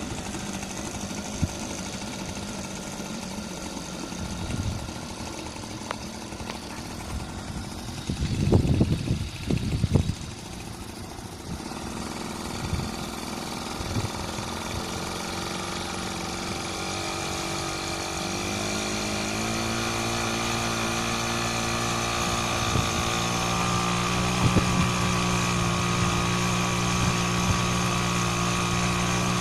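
HDX T2.5 two-stroke outboard motor, fitted with a moped carburettor, running steadily. A loud noisy rumble comes about eight to ten seconds in. In the second half the engine speed rises in two steps and it runs faster and louder to the end.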